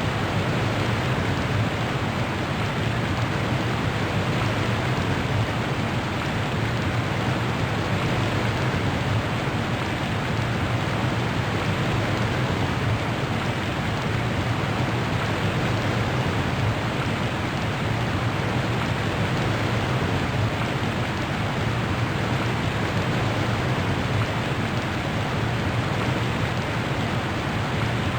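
Steady, even rushing noise like heavy rain, unchanging throughout, with no separate drops, thunder claps or other events standing out.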